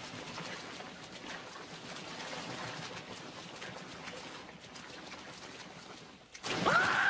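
Cartoon soundtrack water noise, a steady hiss with no clear pitch, that drops away about six seconds in. A voice then cries out, loud and bending up and down in pitch, gasping.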